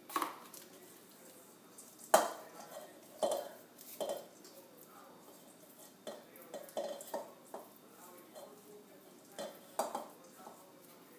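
A mixing utensil stirring a thick ricotta and shredded cheese mixture in a stainless steel bowl, knocking and scraping against the metal in irregular clanks. The loudest clank comes about two seconds in.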